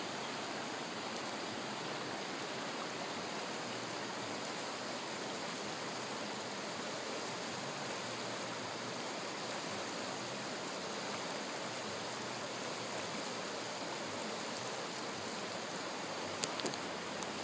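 Creek water rushing steadily over its bed, with a few short clicks near the end.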